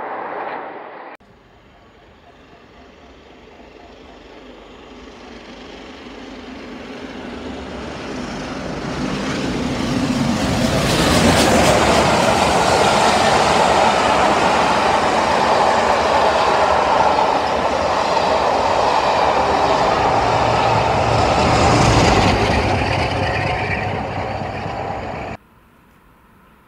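Passenger train running past close by. The tail of one train stops abruptly about a second in. Then another train builds from faint to a loud rush of coaches and wheels on the rails for about ten seconds, fades, and cuts off near the end.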